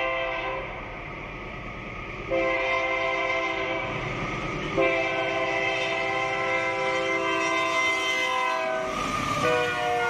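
Canadian Pacific-led freight train's locomotive air horn sounding for the grade crossing, several notes at once: one blast ends about half a second in, another starts about two seconds in, and a long blast runs until the locomotive reaches the crossing. The horn then sounds again at a lower pitch as it passes, over the rising rumble of the locomotives and freight cars.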